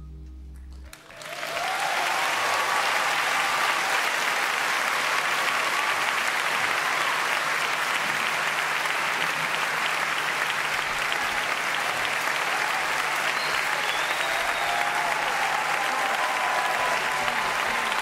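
Large concert audience applauding, with some cheering and whistling. The applause breaks out about a second in, as the final notes of the previous song die away, and holds steady.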